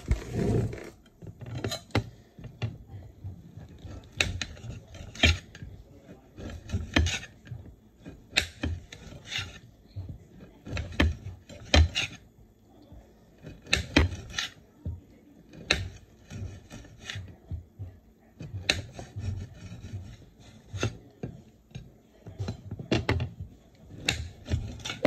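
Knife slicing dried Chinese sausage on a plate: a run of irregular sharp knocks as the blade strikes the plate, with short scraping sounds between cuts.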